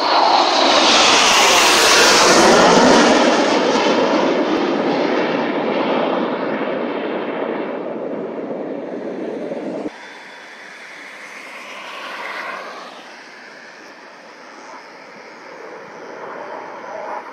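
A formation of display jets passing: a loud jet rush whose pitch falls as they go by in the first few seconds. It ends in an abrupt cut about ten seconds in, followed by fainter, more distant jet noise that swells and fades around twelve seconds.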